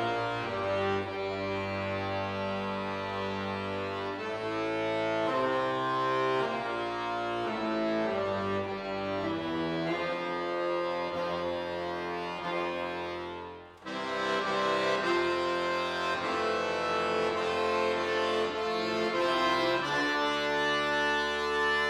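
Solo Cooperfisa accordion playing held chords and moving melodic lines. About fourteen seconds in the sound dies away briefly, then the playing comes back in full.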